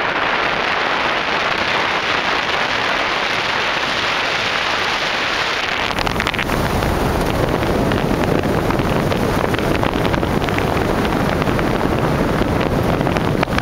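Wind rushing over the microphone with road noise from a moving vehicle, a steady loud rush that takes on a heavier low rumble from about six seconds in.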